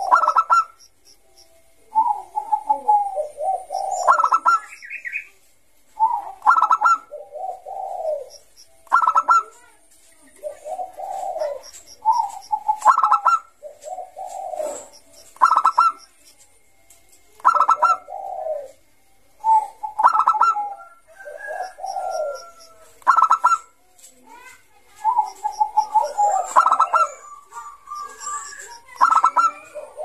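Perkutut Bangkok zebra dove (Geopelia striata) singing continuously: a rhythmic cooing phrase of short, choppy coos that comes round every two to three seconds.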